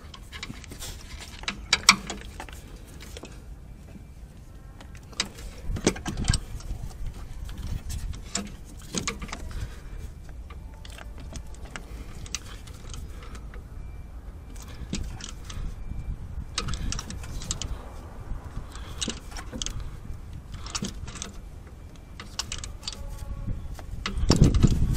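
Metal clicks and clinks of a ratchet wrench and socket extension, in short runs with pauses, as a new spark plug is given its final tightening by hand. A louder low rumble of handling noise comes near the end.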